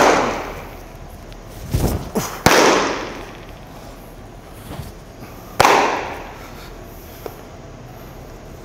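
Baseball catch: a thrown ball smacks into a leather glove three times with sharp pops, at the start, about two and a half seconds in and a little past the middle, each ringing on in the echo of the hall. A duller thud comes just before the second pop.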